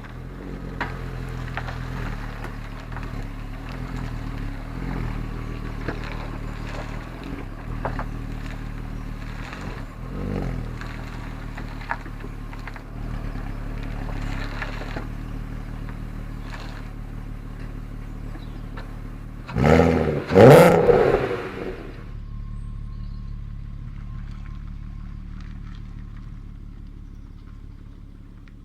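Mk4 Golf R32's 3.2-litre VR6 engine idling through a Milltek exhaust, with a few light throttle blips and, about twenty seconds in, two quick hard revs that rise and fall back to idle, by far the loudest moment.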